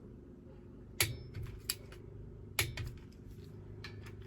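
Torque wrench clicking twice, about a second and a half apart, as a water pump bolt is tightened to 22 foot-pounds, with a few lighter ticks between.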